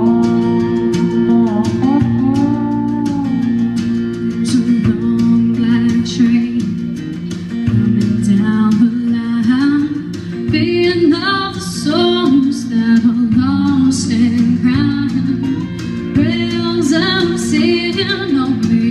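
A woman singing a melody into a microphone over guitar accompaniment, with steady held low notes underneath the voice.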